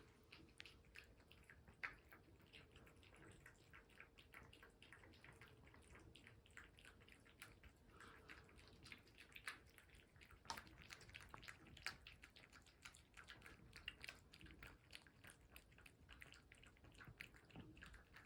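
Cats licking and chewing tuna: faint, quick wet clicks and smacks, several a second, with a few louder ones. A faint steady hum sits underneath.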